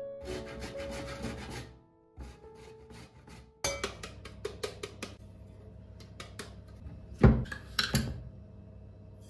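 Frozen lemon being grated on a stainless steel box grater into a glass bowl: quick rasping strokes, pausing briefly about two seconds in and then picking up again. About seven seconds in comes a loud thump, followed by a few clinks of a spoon in a glass jar of sugar.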